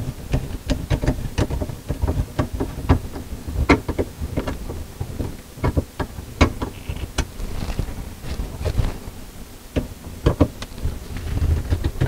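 Screwdriver turning the screw of a metal hose clamp to tighten it on a dishwasher drain hose: a run of irregular small clicks and taps with hand-handling rustle.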